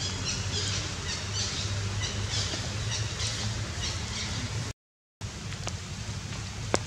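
Outdoor forest ambience: a steady background hiss and low hum, with quick high chirps repeating through the first few seconds. Near the middle the sound drops out for about half a second, then the background returns, with a single sharp click near the end.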